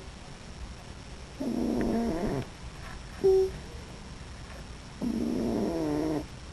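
Sleeping raccoon snoring: two drawn-out, rasping, pitched snores about three and a half seconds apart, with a short clear whistling note between them.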